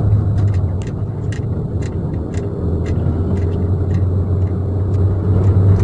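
Steady low rumble of a Hyundai i30 being driven, heard inside the cabin, with light clicks about twice a second that the driver puts down to the keychain rattling.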